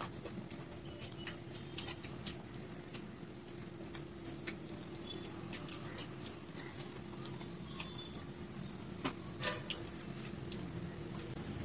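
Close-up eating sounds of rice and curry eaten by hand: scattered soft clicks of chewing and lip-smacking, a little louder about nine seconds in, over a faint steady hum.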